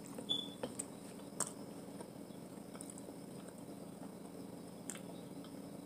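Quiet chewing and mouth sounds of someone eating a seafood boil, with a few short clicks scattered through, the sharpest about a second and a half in, over a faint steady hum.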